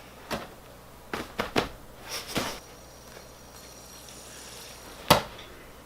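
Light knocks and plastic clatter from a fidget spinner being handled and thrown at plastic cups: one knock near the start, a quick cluster of several a second or so later, and one sharp, loudest knock about five seconds in.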